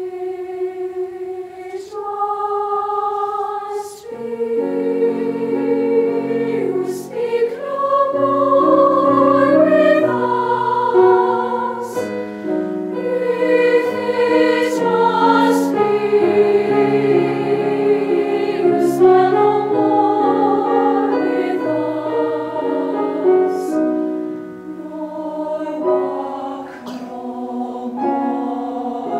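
A girls' choir singing. It opens on a single held line in unison, then spreads into several-part harmony about four seconds in, with sustained chords changing every second or so.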